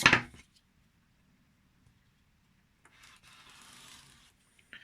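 Faint rustle and scrape of handling for just over a second, about three seconds in, as an Arkansas sharpening stone is set down on a non-slip mat, after a stretch of near silence.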